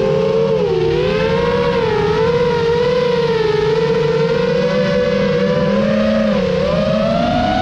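FPV quadcopter's electric motors and propellers whining, the pitch wavering up and down with throttle changes and climbing near the end, over a low rushing noise.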